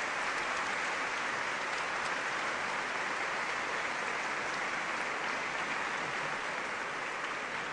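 A concert-hall audience applauding: a dense, steady clapping that eases off slightly near the end.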